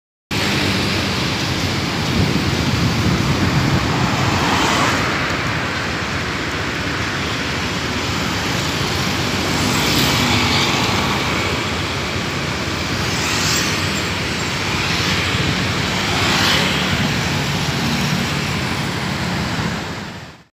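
Busy city road traffic heard from a moving motorbike: a steady mix of engines, tyres and wind, swelling a few times as vehicles pass close by.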